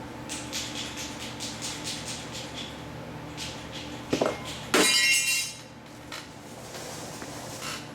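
Small parts being handled, with a run of light clicks and ticks, a knock, then a bright, loud clatter of clinking pieces about five seconds in.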